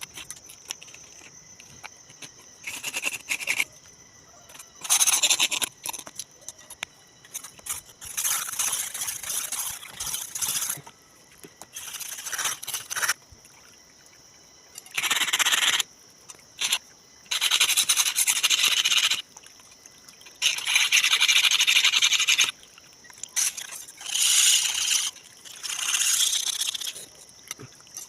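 Old rusted khukuri blade being scraped or sanded to take the rust off: about nine long rasping strokes of one to two seconds each, with short pauses between. A faint steady high insect-like drone runs underneath.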